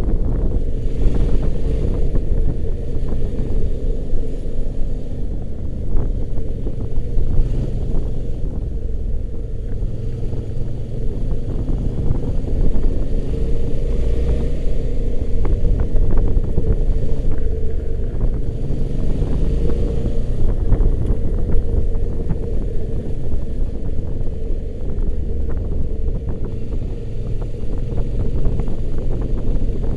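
Motorcycle engine running steadily at cruising speed, with a heavy low rumble from the ride underneath it.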